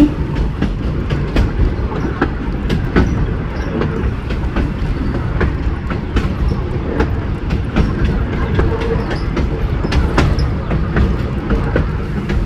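Narrow-gauge train running along the track: a steady low rumble with frequent, irregularly spaced clicks and knocks from the wheels over the rails.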